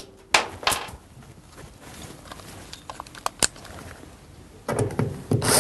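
Scattered clicks and knocks of a metal door hinge being handled and fitted into the side of a tumble dryer.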